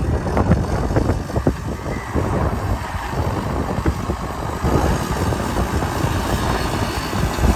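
Diesel engine of a backhoe loader running steadily while it works a mound of soil.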